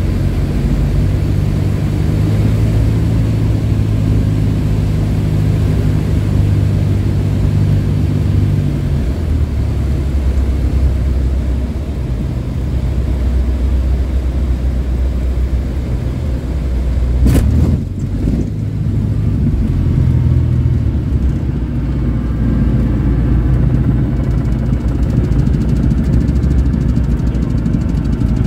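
Cessna 172's piston engine heard from inside the cabin on landing, its note dropping lower about a third of the way in as power comes back. About two-thirds of the way through there is one sharp bang as the wheels hit the runway hard and the aircraft bounces, then the engine runs on through the rollout.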